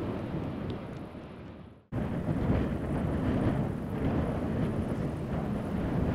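Wind buffeting the microphone over a low rumble. The sound fades away almost to silence about two seconds in, then cuts straight back in at full level.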